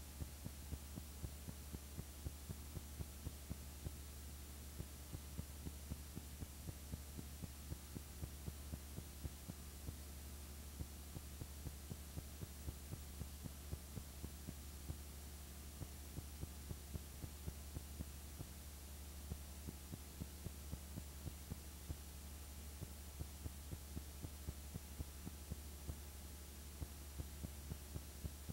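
Film projector running: a faint steady low hum with a quick, uneven ticking a few times a second.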